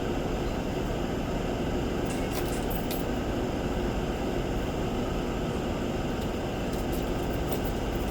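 Steady ventilation fan noise, with a few faint light clicks about two to three seconds in and again near the end.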